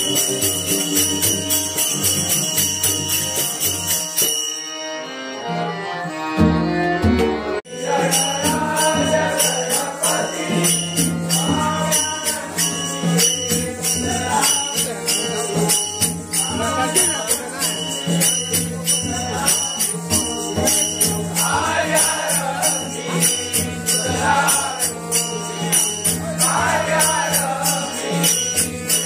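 Devotional bhajan played live: small hand cymbals clash in a steady rhythm over a barrel drum's beat, and a chorus of men sings. The cymbals drop out briefly about five seconds in, and the group singing comes in about eight seconds in.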